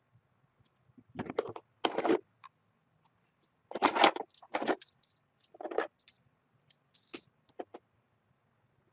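Small metal tools or parts being handled, clattering and clinking together in several short bursts, with a few brief high ringing clinks.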